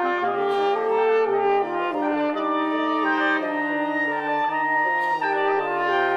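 A wind quintet with French horn, flute and clarinet playing sustained chords over a low, repeating figure of short notes, in a minimalist style.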